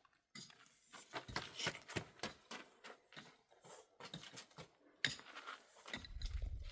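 Irregular clicks, knocks and rustles of things being handled, with a low rumble starting about six seconds in.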